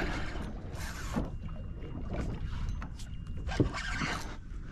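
Water slapping and lapping against the hull of a small boat, with wind rumbling on the microphone and a few short splashy knocks.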